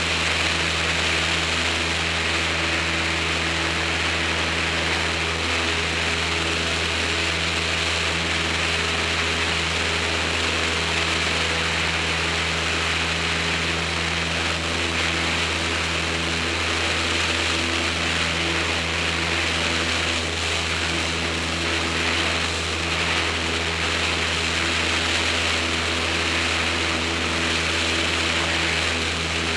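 Small propeller airplane's engine and propeller running steadily at departure power, an even drone with a strong low tone and a broad hiss above it.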